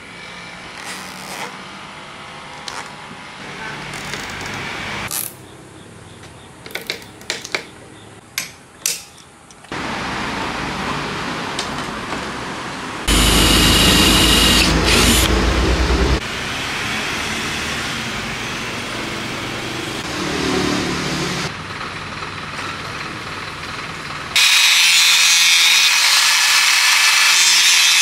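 Workshop power-tool work. Light clicks and knocks of hands handling a sheet-metal box and its wiring come first. About halfway there are three seconds of an electric drill boring into a plastic jerrycan, and in the last few seconds an angle grinder with a cutting disc cuts metal.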